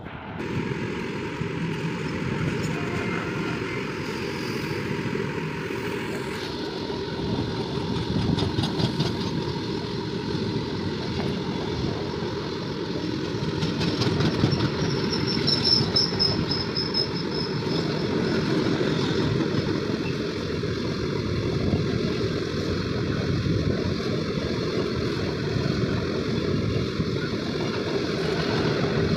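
Long freight train of tarpaulin-covered open wagons rolling past at close range behind an electric locomotive: a steady, loud rumble of steel wheels on the rails. A brief high squeal rises above it about halfway through.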